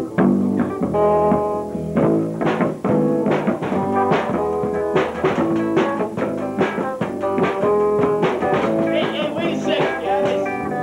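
A rock band playing: electric guitar and other pitched instruments over a busy drum beat with frequent hits.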